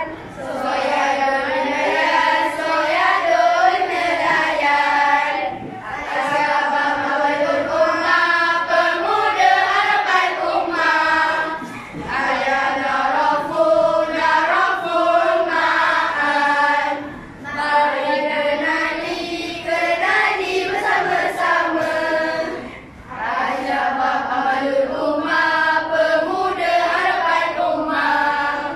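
A class of children singing a lesson song in Arabic in unison. The phrases last about five to six seconds each, with a short break between them.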